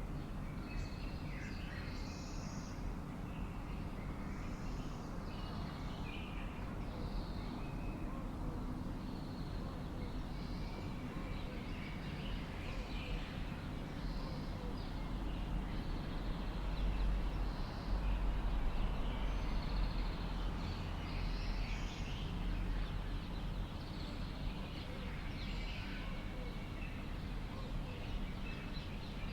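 Many short, scattered bird calls and chirps over a steady low rumble, which grows louder for a few seconds around the middle.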